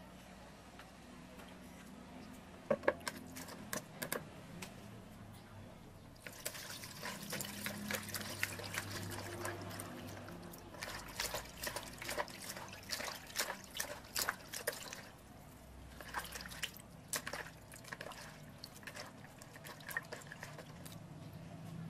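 Hands swishing and rubbing peeled raw shrimp in a plastic basin of water: irregular splashing and dripping in bursts, starting a few seconds in after a few light clicks.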